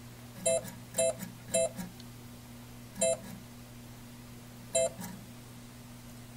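Williams Terminator 2 pinball machine beeping in test mode: five short electronic beeps, three in quick succession and then two more spaced out, as the service buttons step through the general illumination lamp tests. A steady low hum sits under them.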